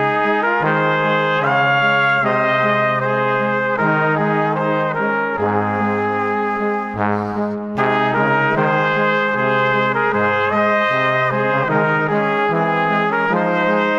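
Background music of sustained chords that change every second or two, with a brief break about seven seconds in.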